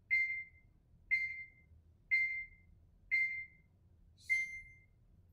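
Electronic beeps from a smartphone running the Strikeman dry-fire training app: one short, clear beep each second, four in a row, then a slightly different, harsher beep a little after four seconds in, like a countdown ending in a start signal.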